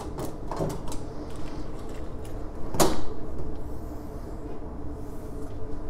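Metal drawer of a Matco tool service cart being unlatched and pulled open on its slides, with small clicks at first and a sharp clack about three seconds in.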